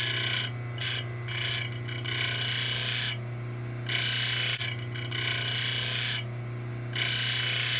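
Simington 451c chain grinder sharpening a chainsaw cutter tooth. Its motor hums steadily while the wheel grinds the tooth in repeated passes, each a fraction of a second to about a second long, with the longest passes in the middle of the stretch.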